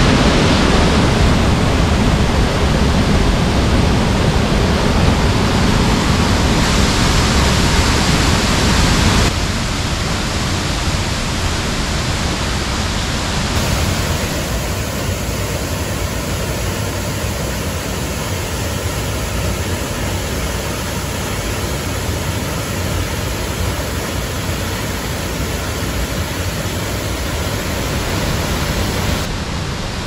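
Waterfall and rushing gorge water: a loud, steady roar. The sound shifts abruptly about 9 seconds in and again about 13 seconds in, where the footage cuts between spots along the water.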